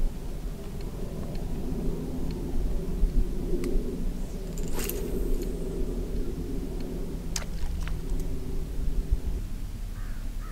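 A steady low engine rumble with a faint hum, like a motor running at a distance, with a few faint clicks and a brief hiss about five seconds in.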